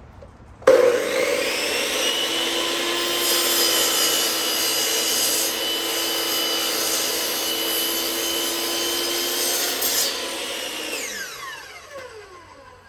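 Hitachi electric miter saw starting suddenly about a second in, its motor and blade running with a steady whine while it cuts through a wooden board. Near the end it is switched off and winds down with a falling pitch.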